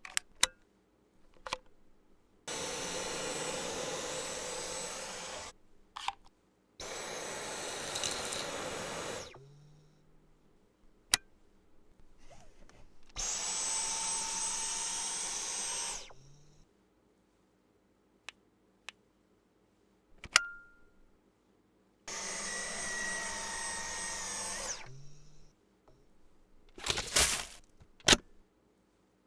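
Dyson vacuum cleaner motor running in four bursts of about three seconds each, each starting and stopping abruptly, with a steady high whine over the airflow noise. Sharp clicks fall between the bursts.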